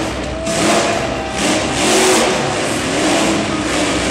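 Monster truck engine revving hard, its pitch rising and falling several times as the throttle is worked.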